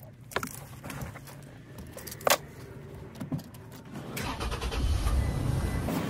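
Movement inside a parked car: a few sharp clicks and knocks, the loudest about two seconds in. Then, about four seconds in, the driver's door opens and a steady low rumble from outside comes in.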